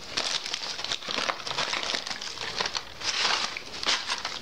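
Firecracker packets and cardboard boxes rustling and crinkling as hands rummage through them, with many small clicks and taps.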